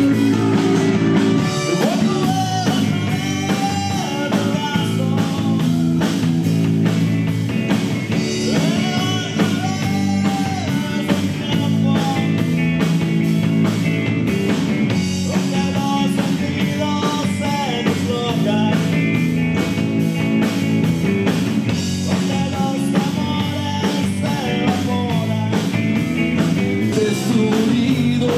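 Live rock band playing: electric guitar, bass guitar and drum kit keeping a steady beat, with a singer's voice carrying the melody.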